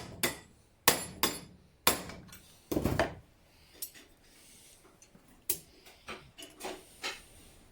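Hammer striking a metal hinge to bend it into a bracket: several hard, ringing blows in the first three seconds, then a series of lighter taps.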